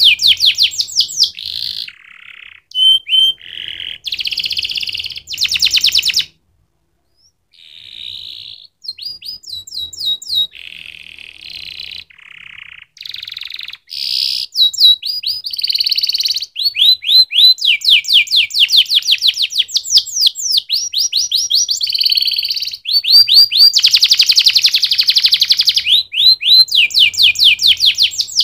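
Domestic canary singing a long song of rapid trills: runs of quick, repeated, falling notes alternating with buzzy rolls. The song is broken once by a short silent gap about six seconds in.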